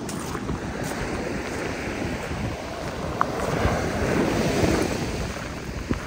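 Heavy surf breaking on a sandy beach, with a wave building and washing in, loudest from about three to five seconds in. Wind buffets the microphone throughout.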